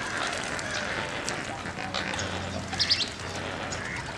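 A flock of flamingos and other waterbirds calling: a steady chatter of honking and gabbling calls, with one louder call about three seconds in.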